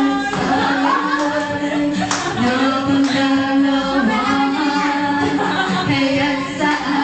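A man singing into a microphone over backing music, karaoke-style.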